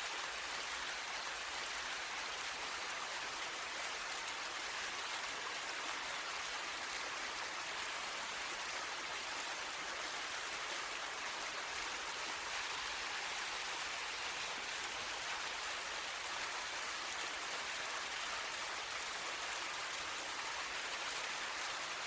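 Medium-sized waterfall: water falling and splashing in a steady, unbroken rush, with most of its energy in the mid and upper range and little low rumble.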